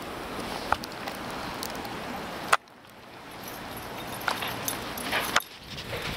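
Crunching steps in snow and a few sharp clicks over a steady outdoor hiss. The sound drops away abruptly twice, after a loud click a little before halfway and again near the end.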